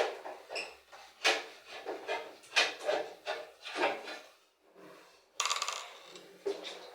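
Irregular knocks, clicks and scrapes of a washing machine's parts and screws being handled during disassembly, with a longer rasping scrape about five and a half seconds in.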